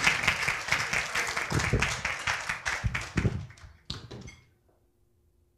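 Congregation applauding after a poem, the clapping thinning out about three and a half seconds in with a few last claps near four seconds, then near silence.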